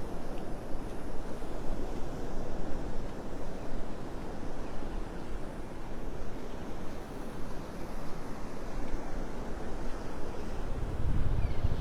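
Wind buffeting the microphone over the wash of surf on the beach, with gusts growing stronger near the end.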